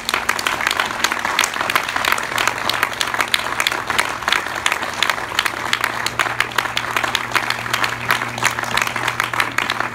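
A crowd applauding, many hands clapping in a dense, steady patter that holds without letting up.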